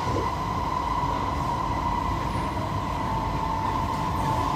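Interior noise of a C151B MRT train running between stations: a steady low rumble with a constant high-pitched whine over it.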